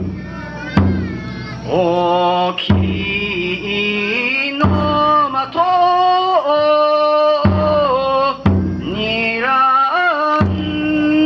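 Bon odori ondo: a lead singer chants a long verse in held, bending notes, with taiko drum strokes every second or two.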